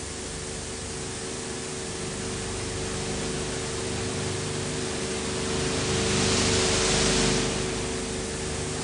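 Steady hiss with a faint, even hum, swelling louder and brighter for about a second near the middle: background noise of an old film transfer's soundtrack.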